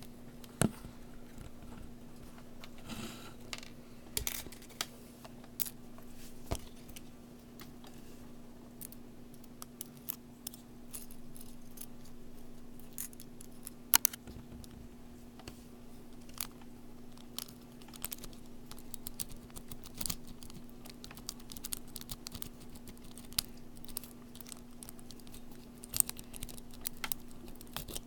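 Irregular small metal clicks and scrapes of a makeshift rake and tension tool working inside a laminated padlock, as it is snake-raked. A steady low hum runs underneath.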